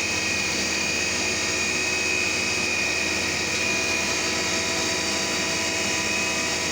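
CNC milling machine running steadily, with a high steady whine over a constant machine hum.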